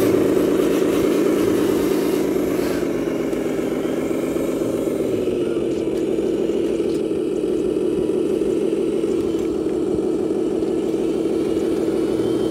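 Drive of a 1/14-scale radio-controlled Mercedes-Benz tipper truck running as it climbs a dirt slope: a steady mid-pitched engine-like hum that drops a little in pitch about five seconds in and then holds.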